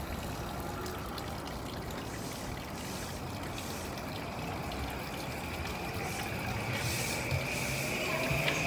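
JR East E235-series Yamanote Line electric train pulling away from a station platform, a steady rumble of wheels and running gear that grows louder as it picks up speed. From about seven seconds in, a high steady whine comes up and a lower motor whine starts to climb in pitch as the train accelerates.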